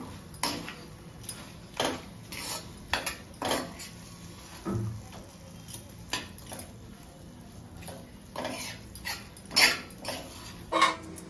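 Metal spoon scraping and knocking against a brass pan while stirring a thick coconut and jaggery filling, in irregular strokes with the loudest near the end.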